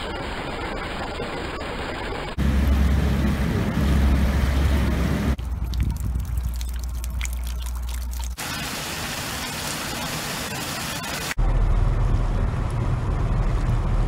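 Different water sounds cut together about every three seconds: heavy rain falling, meltwater running over ice, and choppy water. Two of the stretches are louder, with a deep rumble under the rush of water.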